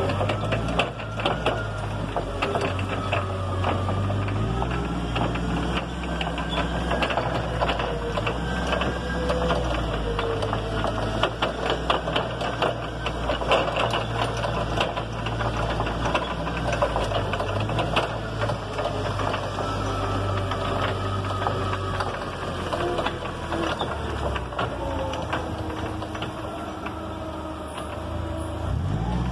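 Forklift running and driving, its motor giving a whine that rises and falls in pitch, over a steady low hum, with constant rattling clicks.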